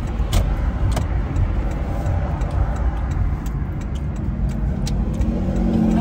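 Car cabin noise while driving: a steady low rumble of engine and road, with a few light clicks.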